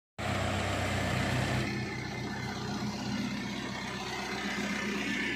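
Backhoe loader's diesel engine running steadily, a low even drone, starting just after a split-second gap of silence and easing slightly in level about two seconds in.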